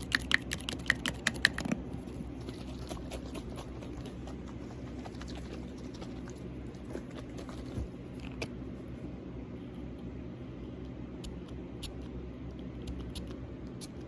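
Fingernails tapping and clicking on a bottle of argan hair oil: a quick run of sharp taps in the first two seconds, then sparser, quieter clicks. An electric fan hums steadily underneath.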